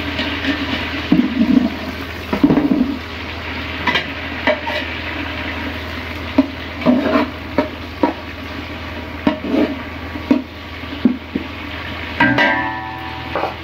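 Sliced onions frying in ghee in a large aluminium pot, sizzling steadily, while a metal spatula scrapes and knocks against the pot at irregular intervals as they are stirred.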